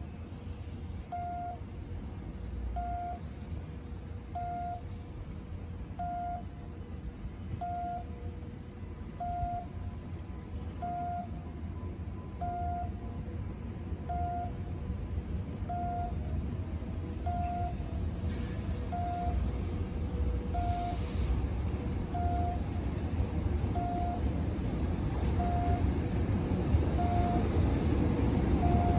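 Low rumble of an EH200 electric locomotive approaching, growing steadily louder. Over it a short electronic beep repeats evenly about every one and a half seconds.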